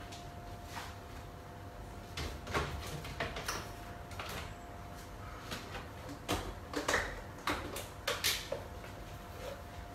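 Chicken tamarind soup boiling hard in a large pot beside a small pan of chicken skin frying on a gas stove: scattered pops and crackles, bunched in the second half, over a faint steady hum.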